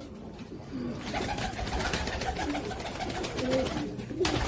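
Several pigeons cooing, their calls overlapping and growing busier about a second in.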